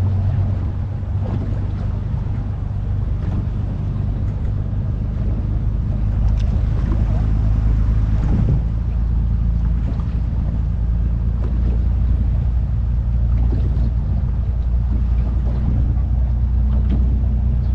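Fishing boat's engine running steadily with a low hum, with water sloshing against the hull and wind on the microphone.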